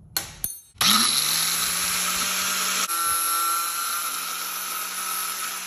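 Electric angle grinder with a thin cutoff wheel, after a couple of short clicks, spinning up about a second in and cutting steel: a loud, steady grinding hiss with a high whine.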